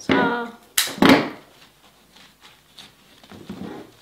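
Handling noise at a wooden workbench: a sharp knock a little under a second in, then a louder thud about a second in, followed by faint rustling and small knocks as foliage and tools are handled.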